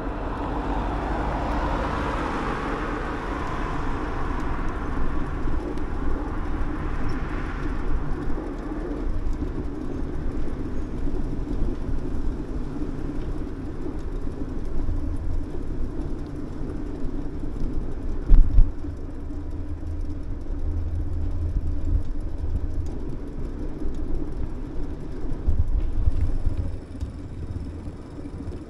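Wind buffeting the microphone and tyre noise of a bicycle rolling along a paved cycle path. A louder hiss over the first several seconds fades away, and there is one sharp thump about eighteen seconds in.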